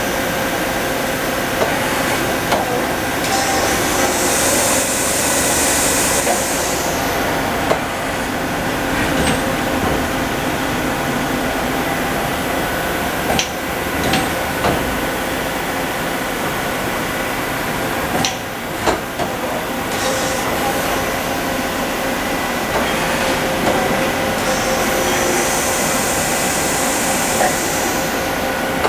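Industrial machinery running with a steady mechanical drone and several steady whining tones, scattered clicks and knocks, and two stretches of high hissing, one about four seconds in and one near the end.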